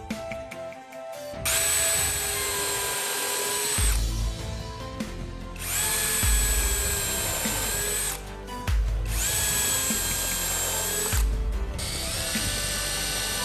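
An electric power tool's motor running in short spells, a steady whine that starts and stops four times, each run lasting about two seconds, over background music.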